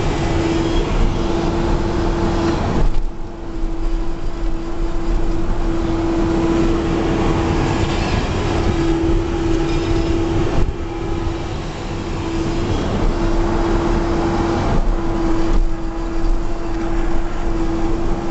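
Backhoe running under operation, a continuous mechanical drone with a steady tone that cuts out and returns several times.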